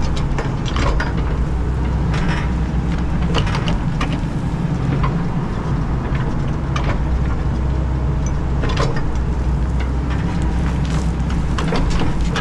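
Hydraulic excavator's diesel engine running under load while digging a trench, swelling and easing as the hydraulics work. Scattered sharp knocks and scrapes of the bucket in the soil come about every second or two.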